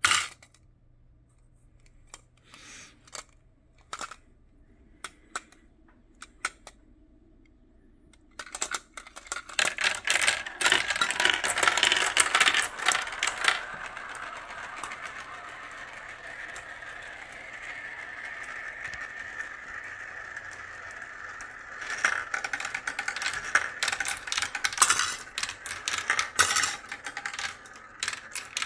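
Glass marbles rolling and clattering through a clear plastic marble run. A few scattered clicks come first, then from about eight seconds in a dense rattle of many marbles, with a smoother, steadier rolling sound in the middle, and dense clicking again near the end.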